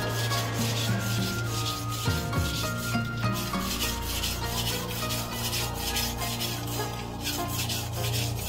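Steel knife blade stroked back and forth on a wet whetstone in a steady rhythm of about three scraping strokes a second.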